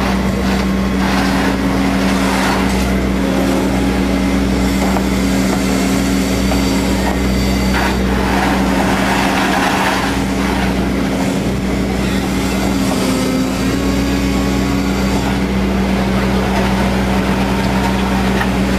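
Excavator's diesel engine running at steady revs while its hydraulics swing and tilt the bucket on the tiltrotator. About eight seconds in comes a rougher stretch of gravel scraping as the bucket digs.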